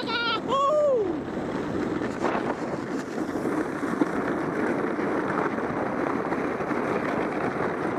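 Zipfy plastic mini-luge sled sliding fast down a packed-snow track: a steady hiss and rumble of the sled on the snow, mixed with wind on the microphone. In the first second the rider gives a falling-pitched whoop.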